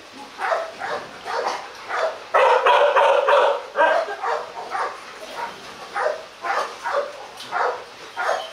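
Dog barking repeatedly, about two barks a second, with a louder, denser flurry of barking about two to four seconds in.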